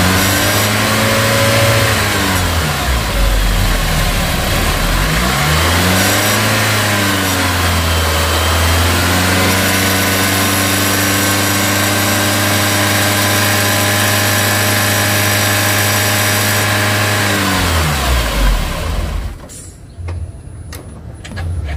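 Nissan X-Trail T30 engine revved up twice, then held at high revs for about eight seconds. It is switched off near the end and winds down to a stop. The alternator pulley stops at once with the engine, with no freewheeling whir after shutdown: the sign of a seized overrunning alternator pulley.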